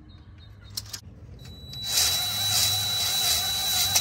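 Cordless drill spinning a spring-loaded stone cylinder hone in a cylinder bore of a Jeep 4.0 straight-six block. It starts about two seconds in and then runs steadily, with a couple of clicks about a second in.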